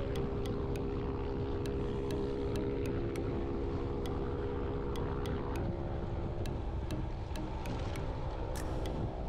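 Wind rushing over the microphone of a moving rider, with the steady hum of a motor vehicle engine that fades out about halfway through, and faint clicks several times a second.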